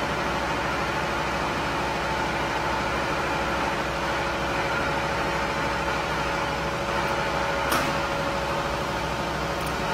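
Acctek AKM1325C ATC CNC router's spindle and saw head running: a steady whine over a broad hiss. A short sharp click comes about three-quarters of the way through.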